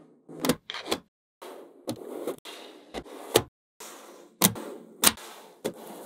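Small magnetic balls clicking sharply together as they are snapped into place, about ten clicks at uneven intervals, with a soft rolling and scraping hiss between them and a few short, abrupt silences.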